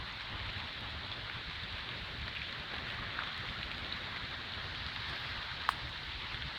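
Storm runoff water flowing steadily where it breaches a ditch, an even rushing hiss with a low rumble underneath. A single sharp click sounds near the end.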